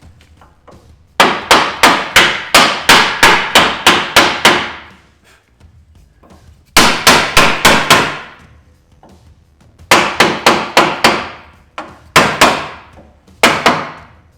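Hammer blows on a steel jeep crossmember, knocking it into line with the frame: quick runs of sharp, ringing metal strikes, several a second, in about five bursts with short pauses between them.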